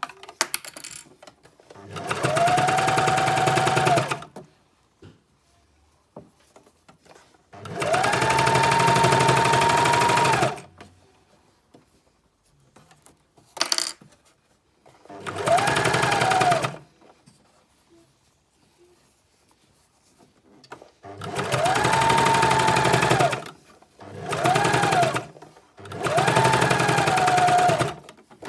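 Sewing machine top-stitching a binding strip in six short runs with pauses between. Each run speeds up, holds for one to three seconds and slows to a stop. A short click comes in the pause about 14 seconds in.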